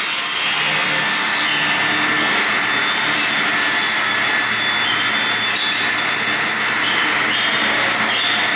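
Circular sawmill blade cutting through a log: a loud, steady sawing hiss that sets in sharply at the start and holds throughout.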